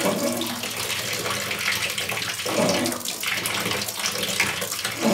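Water running steadily from a bath mixer's spout as an electric water heater drains back through its hot-water line, with the sound of air being sucked into the tank through the open end of the disconnected cold-water hose.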